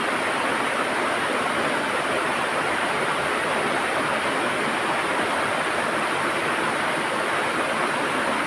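River water rushing and gurgling over rocks, a steady, even flow.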